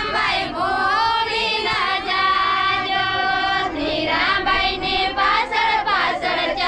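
A group of women singing a traditional Ahir wedding song together.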